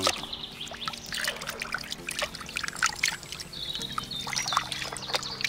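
A hand sloshing and scrubbing in a plastic basin of muddy water: irregular splashes and swishes of water stirred against the tub.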